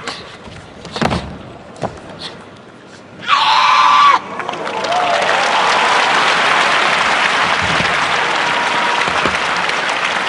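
Karate team bunkai demonstration: a couple of thuds as bodies are taken down onto the mat, then one loud kiai shout about three seconds in, followed by the arena crowd applauding steadily.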